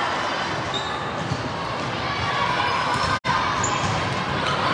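Steady din of a busy gym during volleyball play: a wash of many distant voices, with balls being struck and bouncing and a few short high squeaks. The sound cuts out for an instant about three seconds in.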